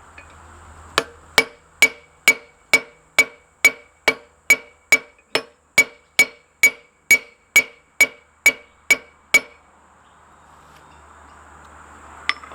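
Blacksmith's hammer striking hot steel on an anvil in a steady run of about twenty blows, roughly two a second, each blow ringing. The run stops about three quarters of the way through, and one lighter tap comes near the end.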